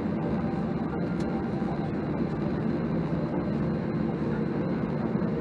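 Steady engine rumble inside the cabin of a Boeing 737-800 taxiing on its CFM56-7B engines, with a faint steady high whine above it.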